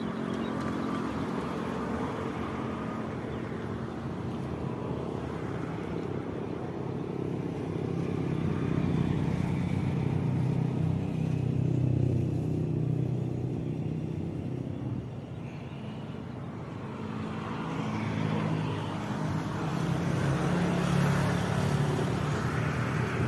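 Small boat engine running steadily, its note swelling and easing a little twice.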